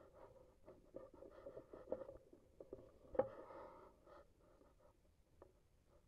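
Faint scratching and rustling of handling noise as the scoped rifle is moved and aimed, with small clicks and one sharper click about three seconds in.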